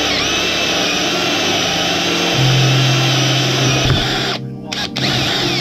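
Electric drill with a hole saw cutting through a wooden plate, a steady grinding cut. About four and a half seconds in, the cutting noise briefly drops out twice, then picks up again.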